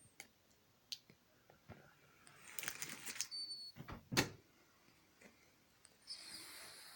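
Elderly Scottish fold cat breathing softly in its sleep, two quiet snoring breaths a few seconds apart. A few small clicks and one sharper knock about four seconds in.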